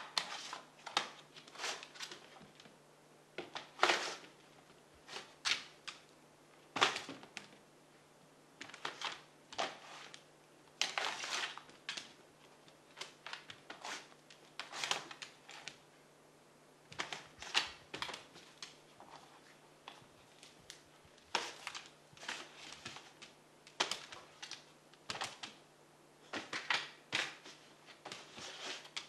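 Dog batting and nosing a plastic track-and-ball cat toy across a hardwood floor: irregular clatters, rattles and knocks of the plastic toy and its ball, coming in uneven spells every second or so.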